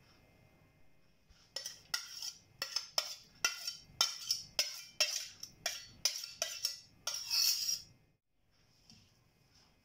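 Repeated clinks and taps against a stainless-steel mixing bowl, roughly two a second, as chopped coriander leaves are added to the onion and flour mix. A longer scraping rustle follows near the end.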